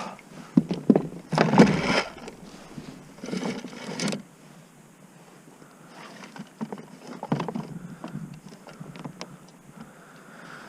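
Irregular knocks, scrapes and short rushing bursts of activity on a kayak: two louder bursts in the first four seconds, then scattered sharp clicks and knocks.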